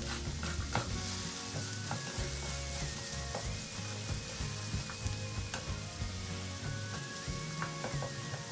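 Diced potatoes sizzling as they fry in oil in a frying pan, stirred with a wooden spatula that clicks and scrapes against the pan now and then.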